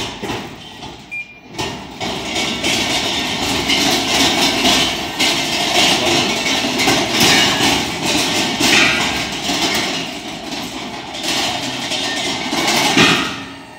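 Automated propane cylinder exchange vending machine working through an exchange, its internal mechanism moving the returned empty cylinder and delivering a full one. A knock at the start, then loud mechanical rattling and clanking from about two seconds in that stops suddenly near the end.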